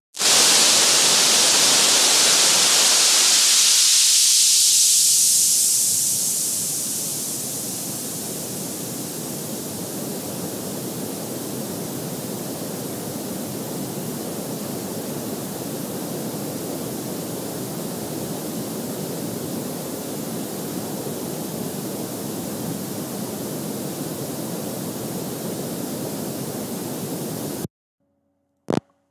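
Steady hiss of static noise that starts abruptly and is loudest for the first five seconds, then settles lower and even before cutting off suddenly, followed by a single click.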